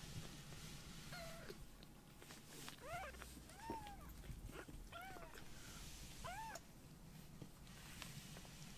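Very young kittens mewing: about five short, high-pitched mews, each rising and then falling in pitch, spread over a few seconds.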